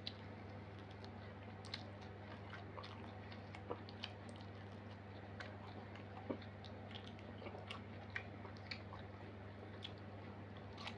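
Close-miked mukbang eating: a person chewing and biting food, with irregular small mouth clicks and crunches. A steady low hum runs underneath.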